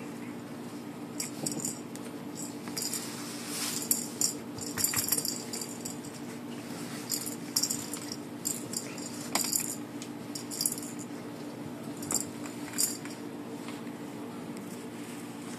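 French bulldog puppies scuffling on cloth among tinsel garland and a rattle ball toy, making irregular bursts of light rustling and clicking over a steady low hum.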